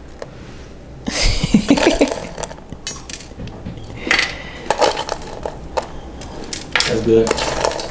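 A metal spoon scraping and clinking against a stainless steel mixing bowl in irregular bursts as a dry granola, brown sugar and cinnamon crumble is spooned out, loudest about a second in.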